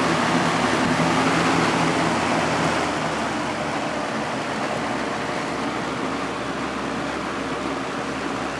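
1980s Galaxy 3713 box fan with a plastic Marco motor running on high: a steady rush of air over a motor hum. About three seconds in it is switched down to medium and settles a little quieter.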